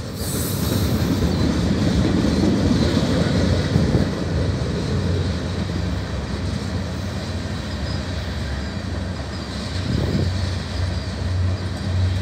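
Loaded freight cars of a long mixed freight train rolling past on steel wheels: a steady rumble of wheels on rail.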